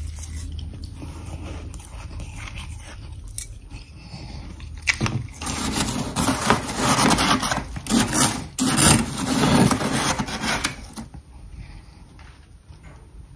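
Crunching a mouthful of powdery freezer frost, then a metal spoon scraping and digging through the packed frost inside a freezer, loud and rough for about six seconds from about five seconds in.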